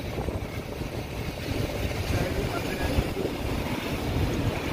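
Truck engine and road noise while driving: a steady low noise with no clear pitch.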